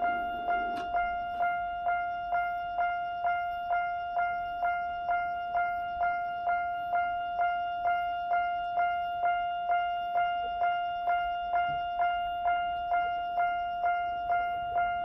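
Jōmō Electric Railway level-crossing warning bell with an odd tone, an electronic bell striking one clear pitch a little over twice a second without a break.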